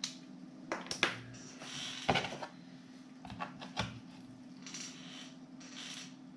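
Small metal screwdriver bits and sockets clicking and rattling in a moulded plastic carrying case as they are handled, with a few sharp clicks and short scraping or rustling stretches. A steady low hum runs underneath.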